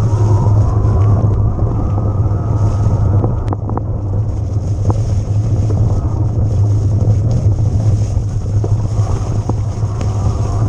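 Wind buffeting the bike-mounted camera's microphone over the rumble of an electric mountain bike riding over rough ground, with scattered sharp clicks and rattles.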